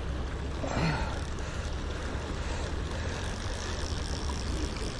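Wind rumbling on the microphone over the steady rush of river water, with a brief louder sound just under a second in.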